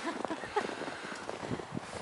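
Footsteps on snow: a run of short, irregular steps.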